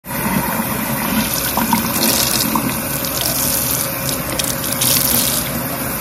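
Water running steadily from a tap onto long wet hair while fingers work through it.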